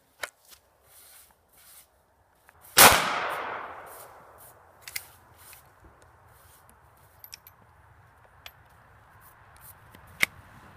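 One rifle shot from a Chiappa M6 X-Caliber break-action survival rifle firing .380 Auto through a caliber conversion insert, a sharp crack with an echo dying away over about a second. Then a few small metallic clicks as the action is broken open and reloaded.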